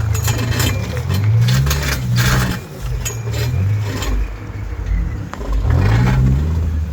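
Car engine running and accelerating, its pitch rising twice, about a second in and again near the end, with scattered clicks and rattles over it.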